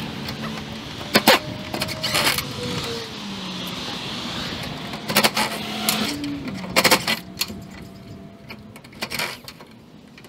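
A cordless drill running against a metal gutter as the gutter fasteners are backed out. The motor's hum shifts in pitch, and several sharp metal clicks and clanks come from the gutter.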